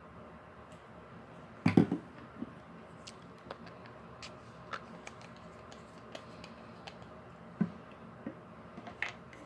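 Scattered light clicks and knocks of bottles and containers being handled on a table, with a louder cluster of knocks about two seconds in and another knock near the end.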